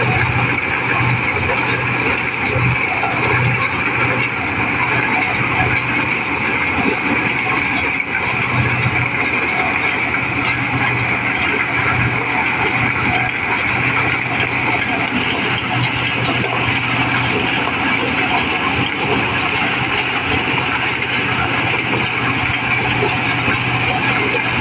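Mobile corn sheller running steadily under load, its engine and threshing drum shelling unhusked corn ears, with the kernels streaming out of the chutes.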